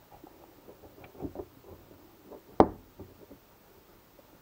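Light clicks and taps of metal parts being seated on the shaft of an RS800 CVT riding-mower transaxle as the ball-bearing cover is pressed into place, with one sharp knock a little past halfway.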